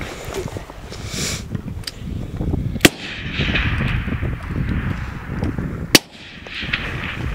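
Two rifle shots about three seconds apart, each a single sharp crack, from a scoped, wooden-stocked rifle fired prone off a bipod.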